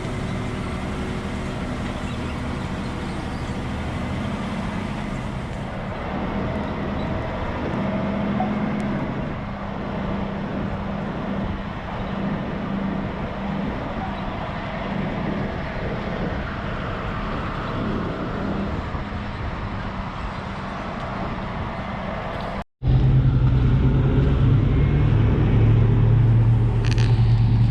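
Diesel log truck engine running steadily. Near the end, after a brief break, it gives way to a louder, deeper steady engine drone.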